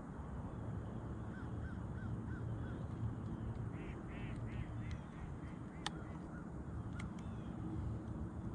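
A bird calling in runs of short, quick calls, about three a second, over a steady low rumble of wind. Two sharp clicks in the second half.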